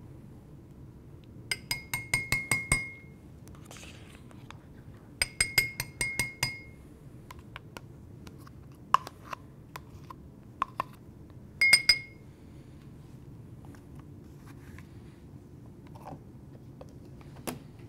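A metal spoon tapping against a small glass bowl in quick runs of clinks that ring briefly, knocking sour cream off the spoon: two long runs of half a dozen taps and a short one of three near the middle, with a few single knocks in between.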